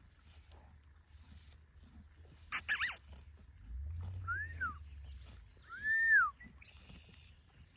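An animal calling: one loud, sharp call about two and a half seconds in, then two short cries that rise and fall in pitch, over a low rumble.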